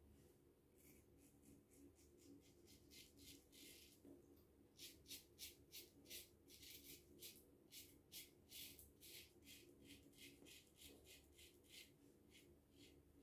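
Gillette Aristocrat double-edge safety razor with a 7 O'Clock Black blade scraping through lather and stubble in short strokes, about three a second, with a brief pause about four seconds in. The strokes are faint, over a low steady hum.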